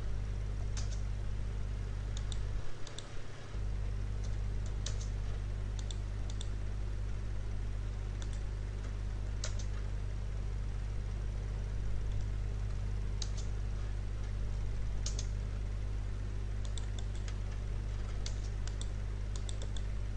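Scattered keystrokes on a computer keyboard, single taps and quick runs of two or three, over a steady low electrical hum. The hum cuts out briefly about three seconds in.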